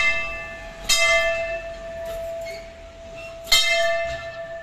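A large hanging temple bell rung by pulling its rope: struck twice, about two and a half seconds apart, each a sharp clang that rings on and slowly fades. It is still ringing from a stroke just before.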